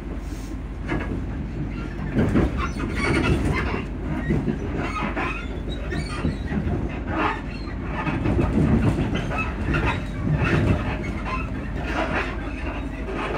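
Inside a moving Class 334 electric multiple unit: a steady low running rumble with irregular knocks and rattles from the carriage suspension, about one or two a second.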